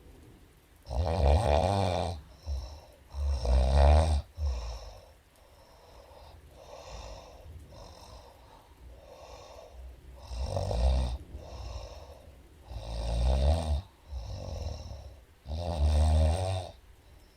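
A woman snoring in her sleep: five loud snores, two near the start and three in the second half, with quieter breaths between them.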